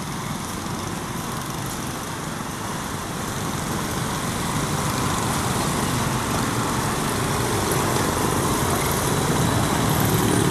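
Diesel locomotive engine running as the light engine approaches, growing steadily louder, over the idling of motorcycles waiting at the crossing.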